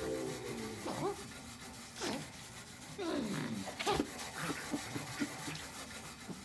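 Short squeaky vocal noises and grunts from cartoon Rabbids, several brief sounds sliding up or down in pitch, about one a second, after background music cuts off at the start.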